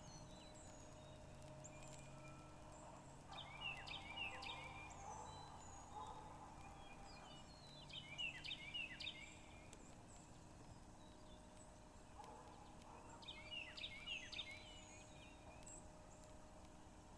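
A songbird singing short phrases of rapid chirping notes, three times about five seconds apart, over a faint steady hum.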